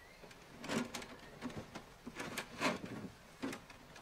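Light, irregular clicks and taps of small metal pieces and wire being handled on a wooden workbench.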